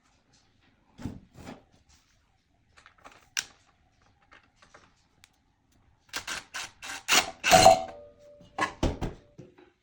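Clicks, taps and clattering knocks of metal ceiling-fan blade brackets being handled and fitted to the fan: a few single clicks at first, then a quick run of louder knocks and rattles in the second half.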